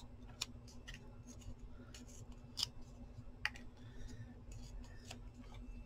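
A coated playing card being torn apart by hand: faint scattered ripping and crackling, with a few sharper ticks as the card stock gives.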